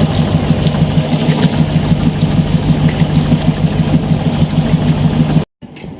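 Caterpillar 3208 V8 diesel engine running steadily with an even, rapid pulse, after its seized injection-pump plungers were freed. It cuts off abruptly near the end.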